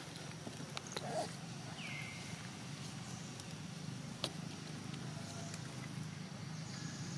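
Outdoor ambience: a steady low hum with scattered faint clicks and taps, and one short high squeak about two seconds in that drops in pitch and then holds.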